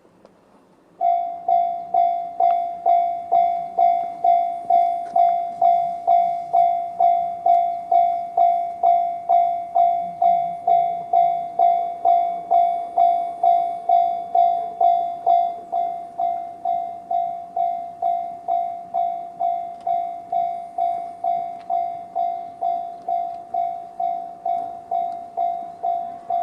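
Japanese railway level-crossing alarm, the JR standard electronic bell tone. It starts about a second in and rings in an even, repeating ding, about two strikes a second, and is a little quieter after about fifteen seconds. The alarm warns that a train is approaching the crossing.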